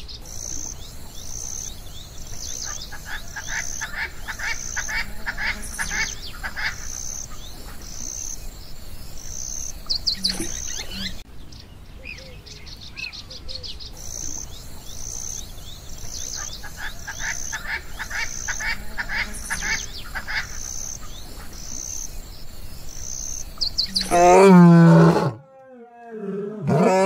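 A background of high chirping repeated about every half second, with bursts of faster trilling. About twenty-four seconds in, a male lion roars loudly: two deep calls a couple of seconds apart, the second running on past the end.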